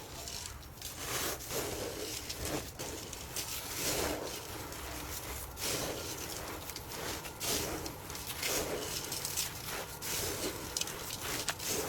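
Close-miked eating sounds: wet chewing and mouth noises repeating about once a second, with small sharp clicks between them.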